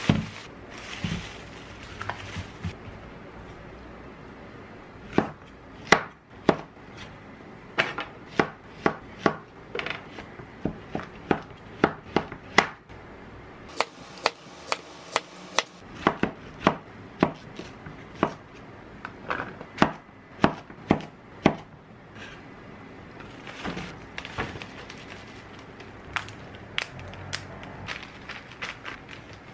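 Kitchen knife cutting through a Korean zucchini and knocking on a wooden cutting board: a run of sharp knocks, about two a second, with a short pause midway. There is plastic wrap and bag rustling near the start, and soft crinkling of zipper bags near the end.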